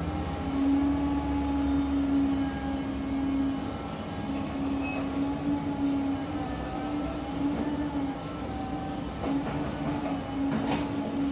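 Volvo crawler excavator running, its engine and hydraulics giving a steady drone with a wavering whine above it as the arm lowers the bucket to dig. A few knocks near the end.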